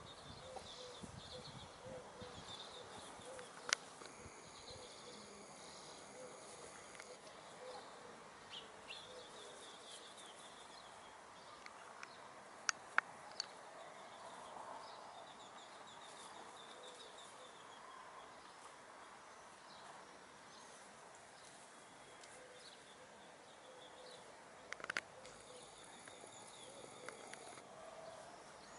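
Domestic hens clucking softly while foraging, a faint, steady run of low notes, with small birds chirping high above them and a few sharp clicks.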